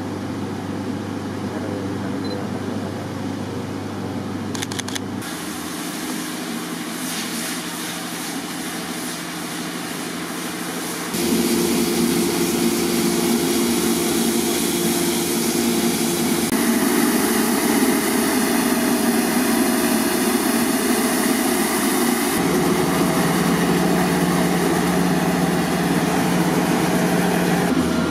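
Heavy municipal trucks' diesel engines running steadily to drive their water pumps, with the hiss of high-pressure water jets hosing down the street. The sound changes abruptly four times and gets louder about a third of the way in.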